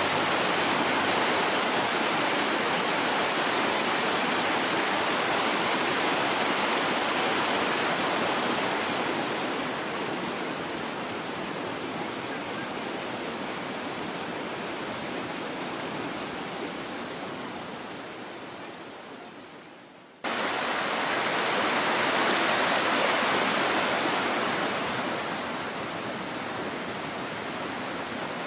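Waterfall and stream water rushing, a steady wash of noise. It fades gradually, cuts off suddenly about twenty seconds in, comes straight back at full strength, and eases off again near the end.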